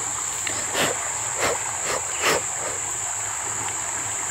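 Muddy floodwater rushing and churning, with a few short splashes in the first half. A steady high-pitched insect drone runs over the water noise.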